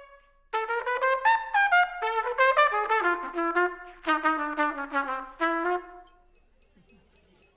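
Unaccompanied trumpet playing a phrase of quick notes with a few short breaks, ending on a held note that fades out about six seconds in.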